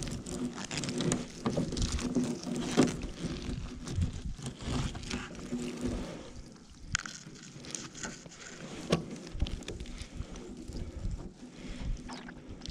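Nylon gill net being hauled and picked over a riveted metal boat hull: rustling mesh with scattered knocks and taps on the hull as a fish is worked out of the net. A faint steady hum runs underneath.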